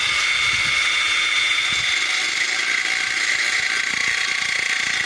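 Makita angle grinder with a cutting disc plunge-cutting into sheet steel: a steady high-pitched whine over a grinding hiss, the motor held at an even speed throughout.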